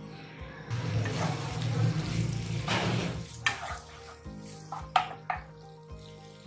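Chopped onions frying in hot oil in a nonstick kadhai, sizzling as a slotted wooden spatula stirs them, loudest in the first half. The spatula knocks sharply against the pan a few times, twice near the end.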